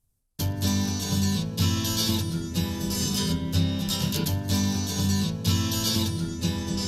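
Recorded acoustic-guitar music starts after a brief silence, about half a second in. The guitar is strummed over a steady rhythm and bass, as the instrumental intro to an acoustic song.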